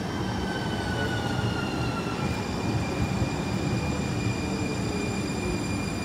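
TriMet MAX light rail train pulling into a stop as it slows: a low rumble with a high, multi-pitched whine that drifts slightly downward and jumps to a different pitch about two seconds in, while a lower tone falls slowly.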